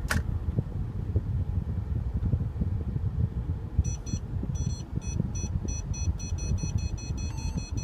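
Parking sensor warning beeps in a 2014 Mercedes-Benz SL550's cabin, starting about halfway in and repeating rapidly as the car reverses into a parallel parking spot under its automatic parking assist. A low cabin rumble from the slowly moving car runs beneath.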